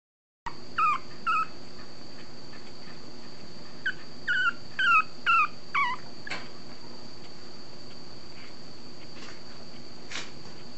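A 30-day-old long-coat Chihuahua puppy whimpering: short, high squeaks that fall in pitch, twice near the start and then five in quick succession about four seconds in.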